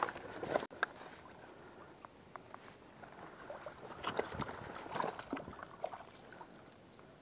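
Footsteps crunching and squelching over wet stones and mud, with scattered small clicks and splashy scrapes.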